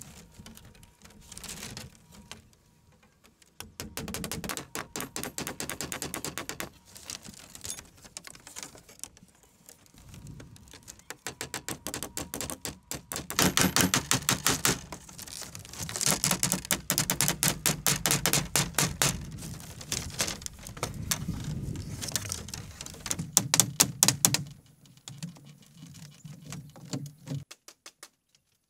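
Rapid runs of sharp taps or knocks, coming in bursts of a few seconds each, then stopping abruptly near the end.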